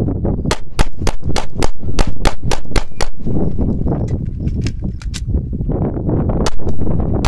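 Shadow Systems MR920 9mm pistol firing a rapid string of about ten shots, about four a second. Then comes a pause of some three seconds for a magazine reload, and it resumes firing with two more shots near the end.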